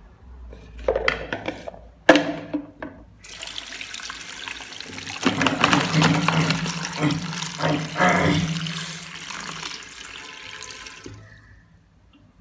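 Tap water running and splashing into a plastic bowl in a sink as a hand rubs an apple in the water, with a few knocks and bumps in the first couple of seconds. The water fades out about a second before the end.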